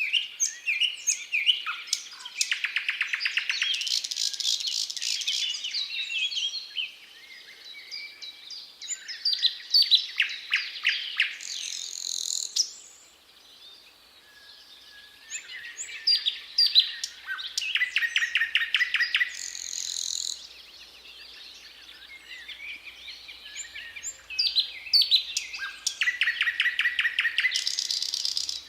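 Thrush nightingale singing: loud phrases of varied whistles, each with a run of rapid repeated notes, delivered with short pauses between phrases.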